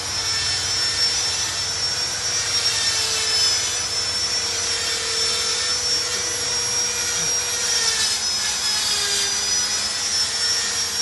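A power tool running steadily off-camera with a high whine over a lower hum; the whine dips in pitch and recovers near the end, as a motor does under load.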